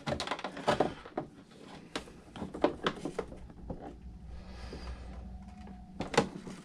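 Handling noise from hands working in a plastic RC boat hull while unhooking the cooling line from the ESC: an irregular run of light clicks and knocks, with one sharper knock near the end.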